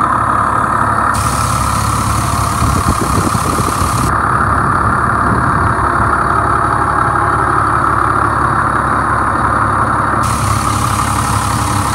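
Cummins 8.3-litre turbocharged straight-six diesel of a 1999 Pierce Saber fire truck idling steadily, heard up close with the cab tilted open. It runs nice and smooth.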